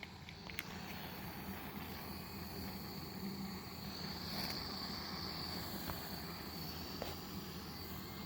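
Small handheld torch flame burning with a steady hiss and a thin high whine, heating heat-shrink tubing over spliced wires.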